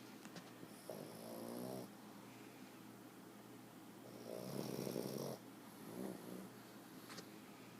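Pug snoring: two snores of about a second each, some three seconds apart, the second louder, then a shorter one.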